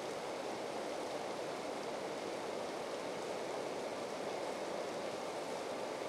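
Steady rush of flowing water, an even hiss without breaks or distinct splashes.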